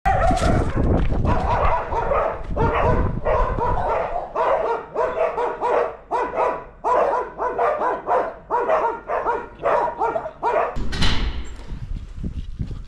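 Dog barking repeatedly, about two barks a second, stopping near the end, followed by a rushing noise.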